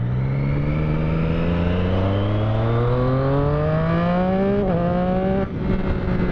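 Motorcycle engine accelerating hard, its pitch rising steadily for about four and a half seconds, then a quick gear change and the throttle eased off to a steady cruise.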